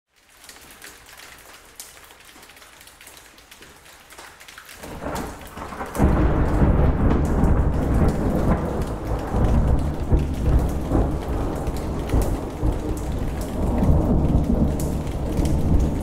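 Steady rain with scattered ticks of drops on a hard surface. About five seconds in, a deep rumble of thunder builds, turns loud a second later and rolls on through the rest.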